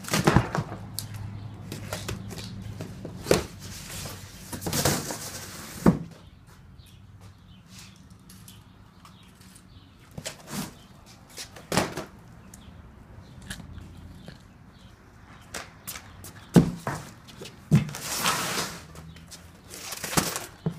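Cardboard boxes being handled and unpacked: irregular knocks and thuds of a large shipping box and the smaller boxes packed inside it, with cardboard scraping and rustling twice, about five seconds in and near the end.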